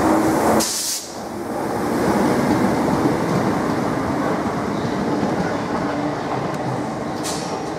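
Electric multiple-unit train running close alongside the platform: a steady rumble of wheels and motors, with a brief high hiss about half a second in and another near the end.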